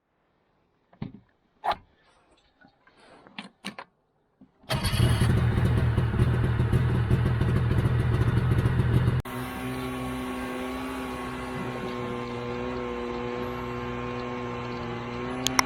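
A few scattered clicks and knocks, then an engine comes in loud and running hard. About nine seconds in it cuts suddenly to a quieter, steady engine hum with a held pitch.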